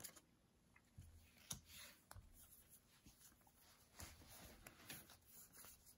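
Faint, soft swishes and light clicks of trading cards being slid one by one off a hand-held stack as they are flipped through quickly.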